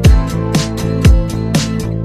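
Background music with a steady beat, guitar and a funky groove.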